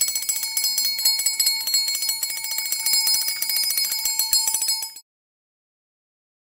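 Homemade motor-driven electric bell: a small DC motor spins a metal striker against a stainless steel cup, giving rapid, even strikes over a steady metallic ring. It cuts off suddenly about five seconds in.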